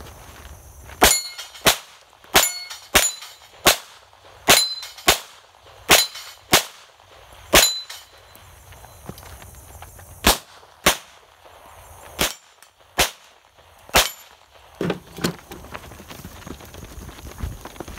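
Handgun shots fired in quick strings, about sixteen in all, several followed by the brief ring of struck steel targets. Near the end the shooting stops and running footsteps follow.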